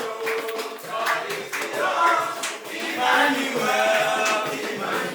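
A group of people singing together in several overlapping voices, with a few hand claps.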